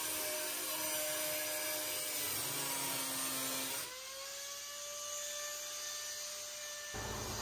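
Angle grinder with a cutting disc running as it cuts into the boat's hatch opening. Its whine sags in pitch while the disc bears on the work, then climbs back about four seconds in as the load comes off.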